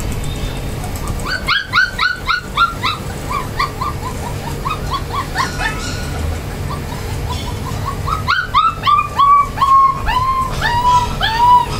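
Golden retriever puppy yelping in quick runs of short, high-pitched cries. One run about a second in drops in pitch; a second run from about eight seconds slows into longer, howl-like cries near the end.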